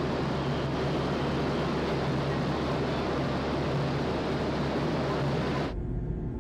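Steady machinery and ventilation noise of a moored car ferry heard on its open deck: a low drone under a broad rushing hiss. It cuts off abruptly near the end and gives way to a quieter hum.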